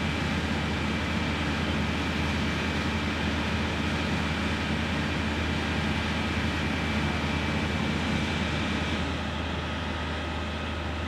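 Heavy vehicle engines running steadily, with a deep hum and a constant thin whine over the noise. The whole sound eases slightly about nine seconds in.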